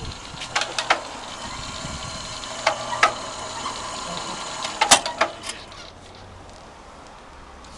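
Mortar pump pumping water, running with a steady hum and irregular sharp metallic knocks that ring briefly. About six seconds in, the running noise drops away to a quieter background.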